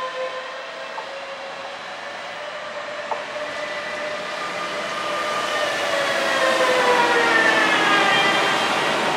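Electric locomotive of a regional express passing close, its drive whining in several tones that slide down in pitch as it goes by, over rising rail and wheel noise.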